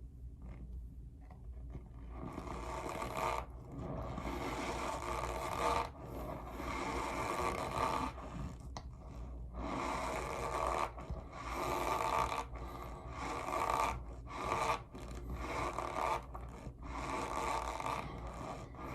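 Loud, rasping squeaks, repeated over and over, each drawn out for a second or two with short breaks between.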